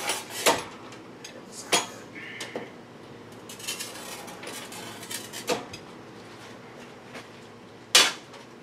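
Clinks and knocks of glass and metal as a vertical glass cutting machine is worked, its cutting head slid along the steel rails against a pane of glass. There are a handful of sharp knocks, the loudest about eight seconds in.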